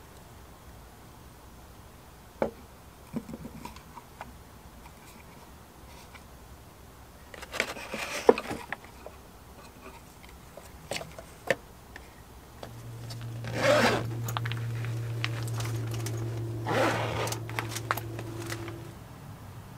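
A few light knocks on a wooden shelf, then several rasping pulls of a tent zipper as a window is opened for ventilation. A steady low hum starts about two-thirds of the way in and stops shortly before the end.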